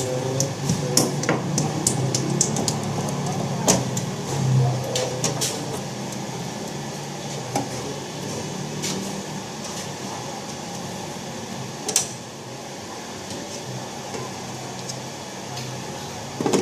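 Scattered sharp clicks and knocks of hand-tool and part handling during air conditioner installation work, over a steady low hum. They come thickly in the first half, with a single louder knock about twelve seconds in.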